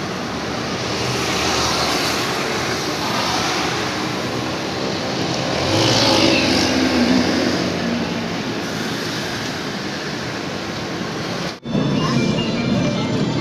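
Road traffic passing on wet pavement, with one vehicle going by louder about six seconds in. Near the end the sound cuts abruptly to the inside of a moving bus, engine and road noise running.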